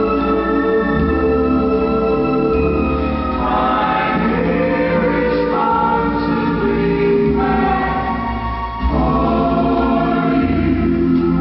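Music: a choir singing long held chords over organ, moving to a new chord every couple of seconds, with a short dip before the last change.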